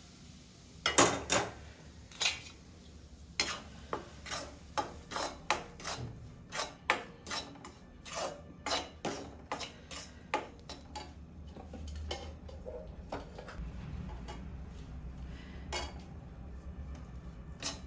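A metal spoon scraping and clinking against a kadhai as ghee is added to wheat flour and stirred in: irregular clinks and short scrapes, with two sharper knocks about a second in.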